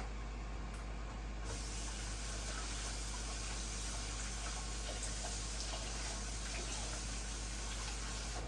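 Kitchen tap running steadily, the rush turning brighter and fuller about a second and a half in.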